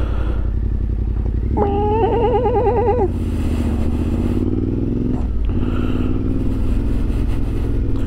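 Yamaha Ténéré 700's parallel-twin engine running steadily under way, its note dipping briefly about five seconds in. A wavering, warbling tone sounds over it for about a second and a half, shortly after the start.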